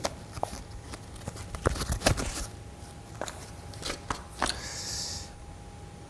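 Handling noise: a scatter of small clicks and light knocks, with a short rustle about five seconds in, as a dust mask is fitted and handled by gloved hands.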